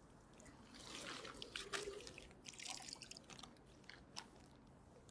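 Irregular crackly clicks and scrapes with dripping water, from handling a bottle encrusted with shells just pulled out of the river. The clicks cluster in the first half, with one sharp click near the end.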